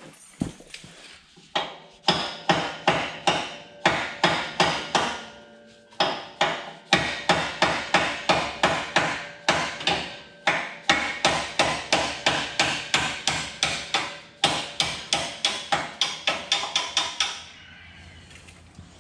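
A hand hammer strikes metal over and over, about three blows a second, in several runs with short pauses. Each blow leaves a faint metallic ring. The hammering is on the truck's rusted-on exhaust parts to knock them loose.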